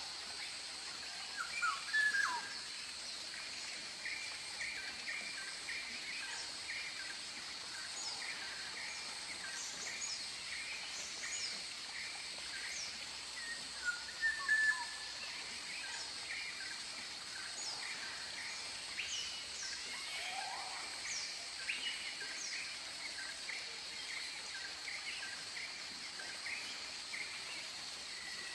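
Tropical forest birds calling: many short chirps, trills and quick falling whistles, with louder calls about two seconds in and again around the middle. They sit over a steady high-pitched insect drone.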